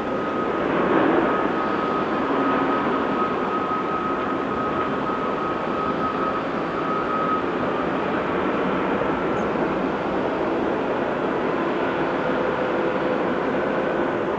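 Heavy diesel earthmoving machinery running steadily, with a thin steady whine over the engine noise for about the first half. The noise swells briefly about a second in.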